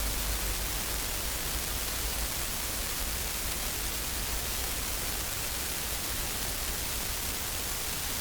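Steady, even hiss with a low rumble underneath that fades out about two seconds in.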